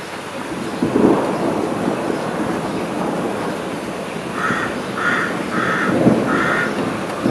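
Thunder rumbling over a steady hiss of rain, swelling about a second in and again near the end. Partway through, a crow caws four times in quick succession.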